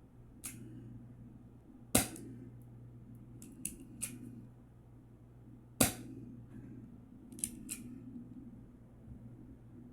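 KWC Beretta M92 airsoft pistol firing two single shots about four seconds apart, each a sharp crack, with fainter mechanical clicks of the gun being handled in between. A low steady hum runs underneath.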